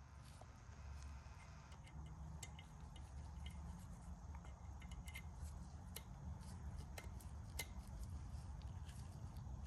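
Scattered light metallic clicks and ticks of small metal tools and parts being handled, over a low steady hum.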